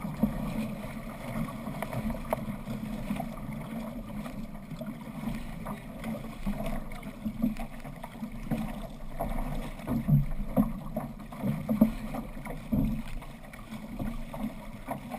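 Water rushing and splashing along the hull of a six-man outrigger canoe under paddle, in uneven surges, with wind buffeting the microphone.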